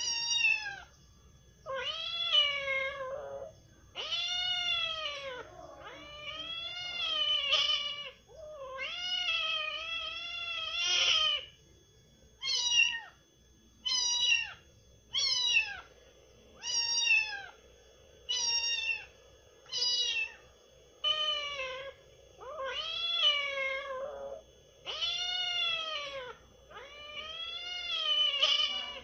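Kitten meowing over and over: more than a dozen high, arching meows, some drawn out and some short, with brief pauses between them.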